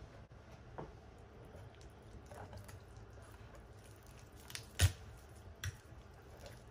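Backbone of a black sea bream snapping by hand as the head is held and the body is pulled back against it: one sharp crack nearly five seconds in, with a smaller snap just before and another about a second later. Soft, wet squishing of the fish flesh being handled throughout.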